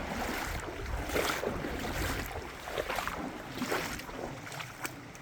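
River water sloshing and swishing around legs as someone wades across a shallow, sandy-bottomed river, with surges about once a second as each step pushes through the water. There is a low rumble of wind on the microphone underneath.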